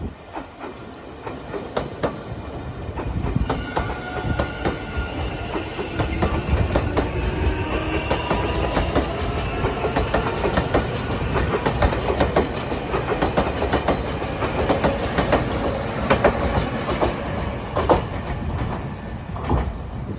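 A Nankai electric train running past, its wheels clacking rapidly over the rail joints, with a whine that rises steadily in pitch through the middle of the pass.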